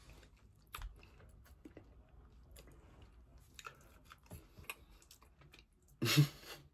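A person chewing and biting food, with faint crunches and small mouth clicks. About six seconds in there is a short, much louder voice sound from him.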